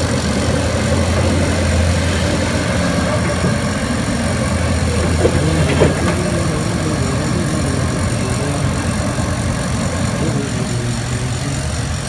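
Heavy construction machinery running steadily, a low engine drone that eases a little after about four seconds, with two light knocks about five and six seconds in.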